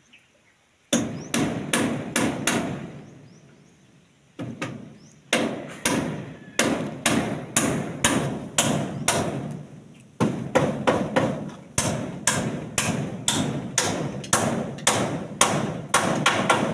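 Hammer nailing a wooden brace onto a wooden post: a quick run of about five blows, a pause of about two seconds, then steady blows about two or three a second.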